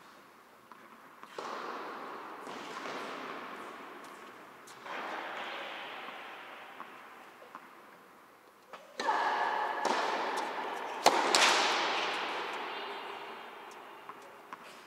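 Tennis rally in a large indoor hall: a series of sudden racket-on-ball strikes, each ringing on in the hall's long echo, with the loudest, sharpest crack about eleven seconds in.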